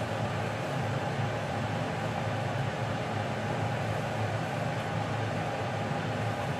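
A steady, even hum and hiss of running machinery, with no breaks or changes.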